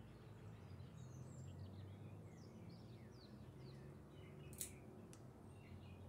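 Faint small songbirds chirping in the background, many short downward-sliding chirps, over a low steady hum. A single sharp click about four and a half seconds in, and a softer one just after.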